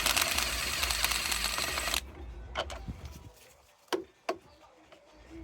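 Socket ratchet spun fast while undoing a bolt: a rapid clicking clatter for about two seconds that stops abruptly, followed by a few single clicks.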